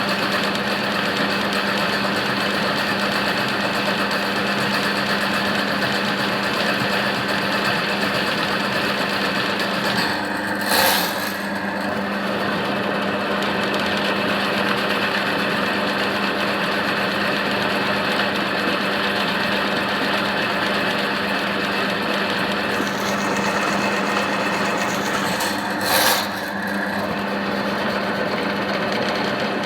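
Electric drain-cleaning machine running steadily, its motor spinning a steel spiral cable through a clogged drain line, with a steady hum. It is briefly louder twice.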